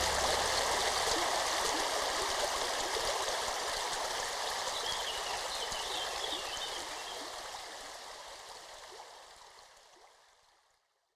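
Running stream, an even rush of babbling water, fading out over the last few seconds into silence.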